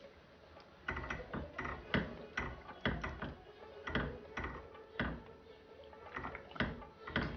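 A spatula knocking against a stainless steel pot of boiling salted water as rolled grape leaves are pushed under and stirred. The knocks are irregular, two or three a second, and start about a second in.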